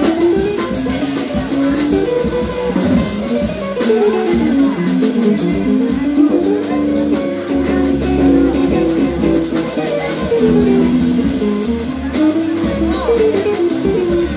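Live jazz trio of electric guitar, electric bass and drum kit playing bebop: a fast single-note melodic line in the middle register over drums and cymbals.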